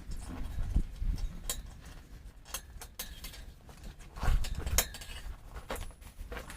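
Metal tools and parts clinking and knocking irregularly as they are handled, with two louder knocks about four and a half seconds in.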